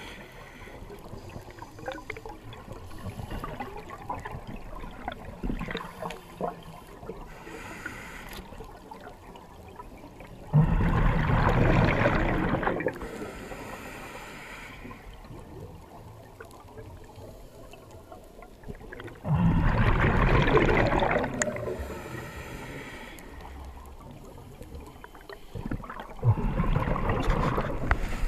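Water sound: a faint crackling background, broken three times by a loud rushing surge of water that starts suddenly and lasts about two seconds, the surges roughly eight seconds apart.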